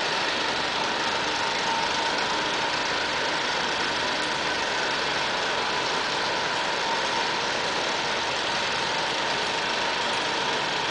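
Steady, even machine drone, a hiss-like noise with a faint steady tone in it.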